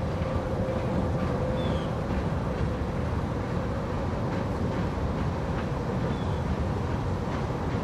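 Ohio Central diesel locomotive 2162 running with a steady low rumble and a faint steady hum, while its stone train is being unloaded.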